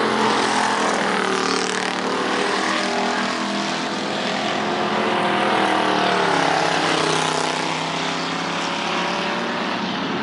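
Several hobby stock race car engines running at once, their notes rising and falling as the cars circle the track.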